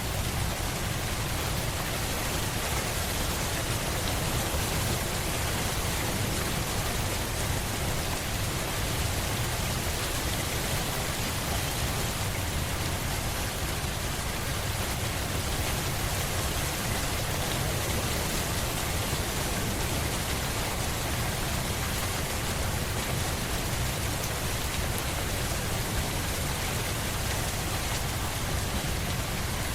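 Steady rain, an even hiss with no single drops or changes standing out.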